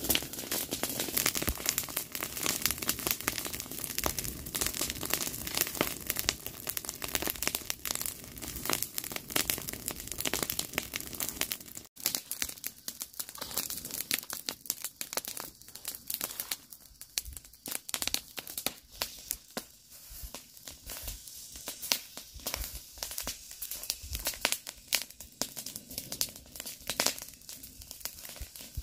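Dry leaves and brush rustling and crackling, dense for the first twelve seconds; after a cut, a rake scrapes through dry, smouldering debris in sparser, irregular strokes.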